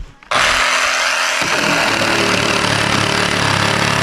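Makita JR105DZ 12 V cordless reciprocating saw switched on about a third of a second in and running steadily; from about a second and a half in a lower, rapid rhythmic chatter joins as the blade cuts into wood.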